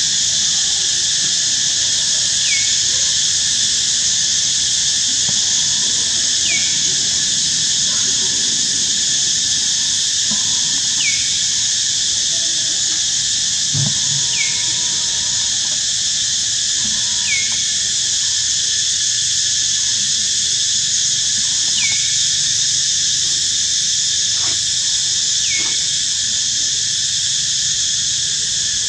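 Steady chorus of insects in a constant high-pitched drone. A short falling chirp repeats about every four seconds.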